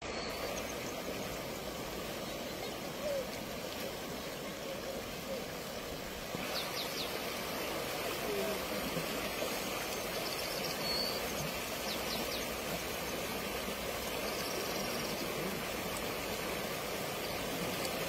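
Swollen floodwater river rushing past in a fast torrent, a steady dense wash of water noise that turns a little louder and brighter about six seconds in.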